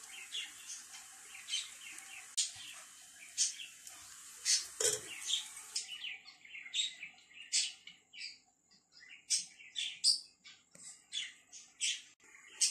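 Small birds chirping in quick, short, high calls, over and over. A single knock sounds about five seconds in.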